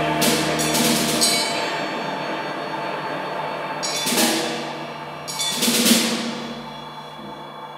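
Live ambient music: a sustained electric-guitar drone fades out in the first second or so. A single drum, a snare-type drum played with sticks, gives sparse hits that ring and die away: two near the start, one about halfway, and a louder pair a little later.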